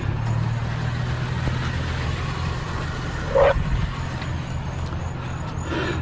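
Truck engine running steadily, a low hum, with one short rising squeak about three and a half seconds in.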